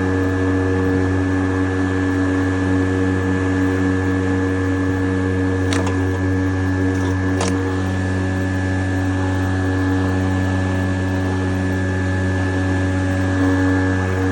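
Stihl RMA 448 VC cordless lawnmower running steadily while mowing: an even electric motor and blade hum with a higher whine over it. Two short clicks come about six seconds in and again a second and a half later.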